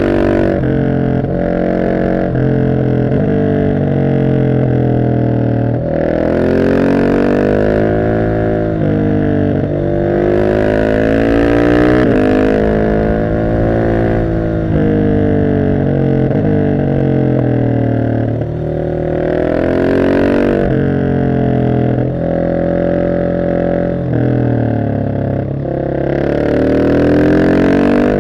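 Husqvarna 701 SM single-cylinder engine through an Arrow exhaust (decat, dB killer fitted), pulling hard several times with its pitch rising, then dropping back at gear changes and when rolling off the throttle.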